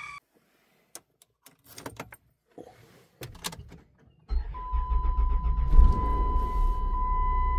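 A few clicks and rattles, then about four seconds in a minivan's engine starts at once and keeps running steadily, on a freshly recharged battery. A steady high-pitched tone sounds over the engine after it starts.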